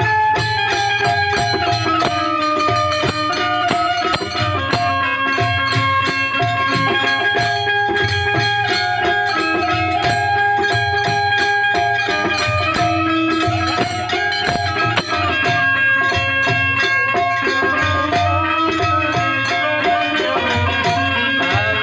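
Instrumental folk music: a harmonium plays a melody in held, stepping notes over a steady dholak rhythm.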